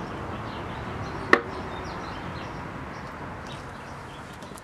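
Steady outdoor background noise with one sharp knock about a second and a half in, fading down near the end.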